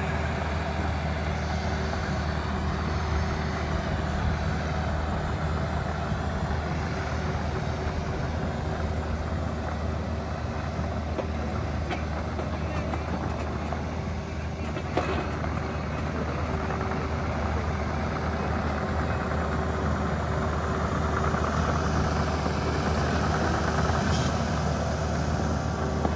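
Takeuchi TB260 mini excavator's diesel engine running steadily as the machine works, with a few light clicks and knocks. The engine grows louder for a few seconds near the end.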